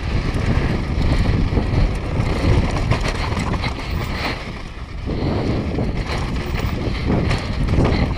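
Wind buffeting a GoPro's microphone on a fast downhill mountain-bike descent, with knobby tyres crunching over loose dirt and gravel and the bike clattering over bumps. The rushing eases briefly about five seconds in, then picks up again.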